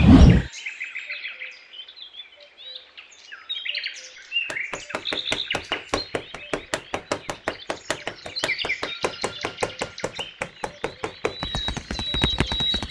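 Birds chirping throughout, over a brief loud hit right at the start. From about four seconds in, a small hand trowel scraping across fine sand in quick, repeated strokes, several a second.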